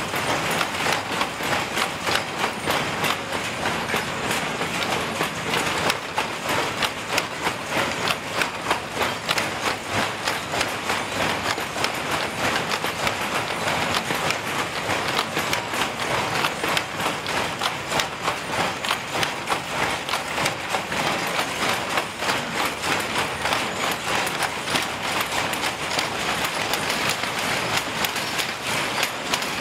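Shuttle power looms weaving blanket cloth: a steady, rhythmic mechanical clatter as the shuttles are thrown across and the reeds beat up the weft, several looms running at once.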